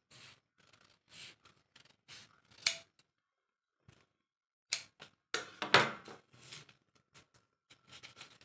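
Large tailor's shears snipping through stiff buckram in a run of short cuts. There is a pause of about a second and a half in the middle, and the loudest snips come just after it.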